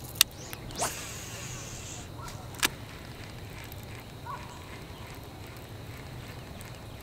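Fishing rod and baitcasting reel being handled during a crankbait retrieve: a sharp click just after the start, a brief swish about a second in, and another sharp click a little later, over a steady quiet outdoor background on the water.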